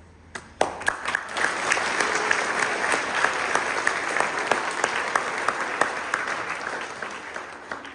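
A large audience of schoolchildren applauding. A few scattered claps come first, then the whole crowd claps steadily for several seconds before it dies away near the end.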